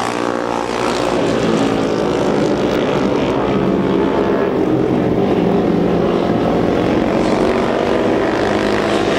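Vintage 250–400cc single-cylinder flat-track racing motorcycles at full throttle: a steady, loud engine drone with a slight waver in pitch.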